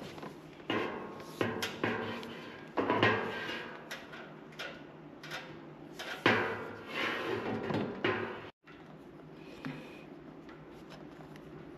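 Handling noises: a string of knocks, clatter and rubbing as parts or tools are moved about, then a sudden cut to a quieter steady background with a few faint ticks.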